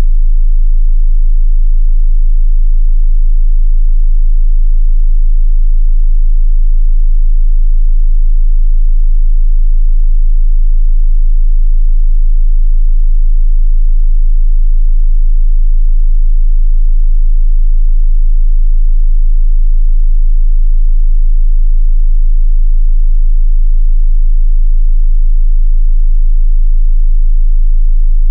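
A loud, steady 27 Hz sine-wave test tone: a single very deep bass pitch held unchanging, used to test a subwoofer's low-frequency reach.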